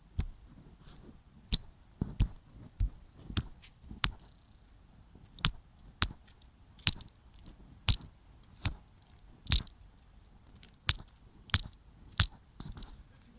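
A series of about sixteen sharp knocks, roughly one every second or faster with a couple of short pauses: a small eel being killed with repeated blows by hand, without pliers.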